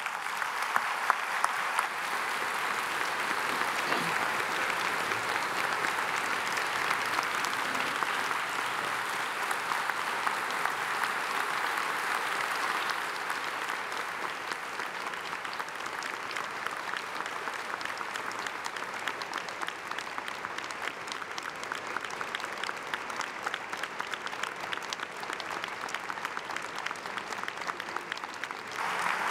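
Audience in a large hall applauding: dense, sustained clapping that starts suddenly and keeps going, easing a little about halfway through.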